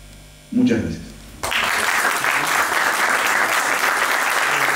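Audience applauding, breaking out suddenly about a second and a half in, right after a man's last short spoken word.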